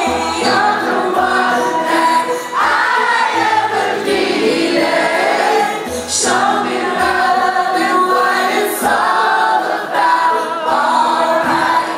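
Live pop song heard from the audience: a woman singing lead into a microphone over keyboards and a bass line pulsing on and off.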